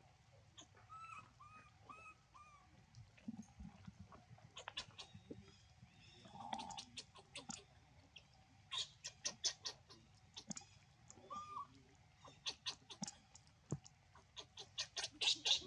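Baby macaque crying with short, high-pitched squeaks: four short arching calls about a second in, then quick runs of sharp cries that are loudest near the end.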